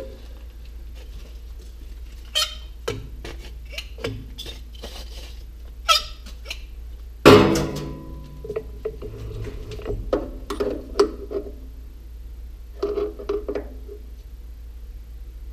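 Metal tools and parts being handled around a metal lathe's toolpost and steel chip tray: scattered clinks and clicks, with one loud ringing clank about seven seconds in, then more light clatter as digital calipers are picked up. A steady low hum runs underneath.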